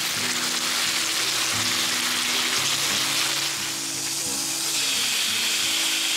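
Venison pieces in a sticky sauce sizzling in a hot frying pan on a camp stove, with background music underneath.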